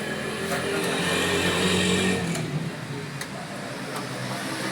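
Computer keyboard keys clicking as a student types. A passing motor vehicle's engine rises over it, loudest between about one and two seconds in, then fades.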